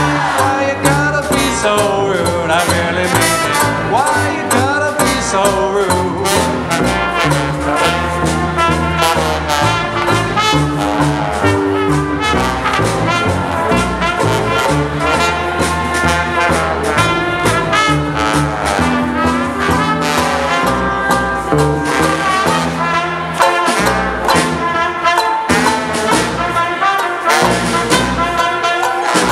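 Small live swing band playing an instrumental passage: trumpet and trombone over a steady beat of strummed ukulele, snare drum and double bass.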